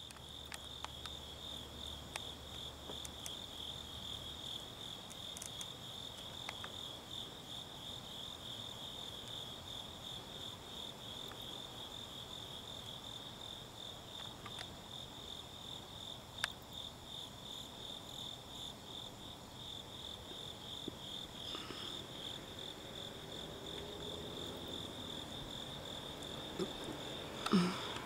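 Crickets chirping in a steady evening chorus, one unbroken high pulsing note; a brief louder sound cuts in near the end.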